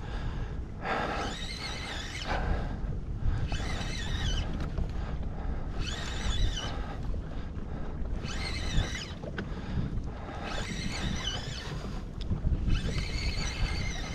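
Spinning reel (Daiwa Certate 4000) being cranked in repeated bursts about every two and a half seconds as a hooked fish is pumped and reeled in toward the kayak. Under it is a steady rumble of wind on the microphone.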